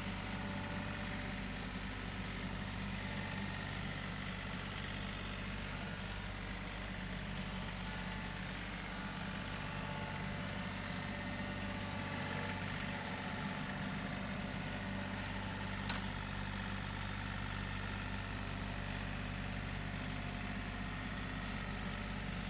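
Tractor engine running steadily at a constant speed, with a single sharp knock about sixteen seconds in.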